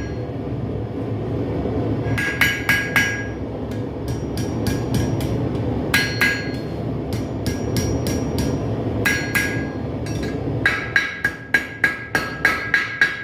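Blacksmith's hammer striking steel on an anvil in bursts of several quick blows, each blow leaving a short metallic ring. The fastest run of blows comes near the end. A steady low noise runs underneath.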